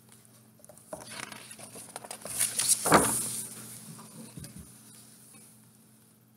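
A page of a large hardcover picture book being turned: paper rustling and swishing, loudest about three seconds in and then fading, with a couple of soft taps a little later as the page is pressed flat.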